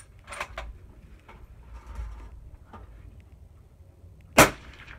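A single suppressed rifle shot from a .22-250 bolt-action rifle fired through a Thunder Beast 9-inch 6.5 Ultra suppressor, a sharp crack with a short ringing tail, measured at about 130 dB at the shooter's ear. A couple of quiet clicks come about half a second in, before the shot.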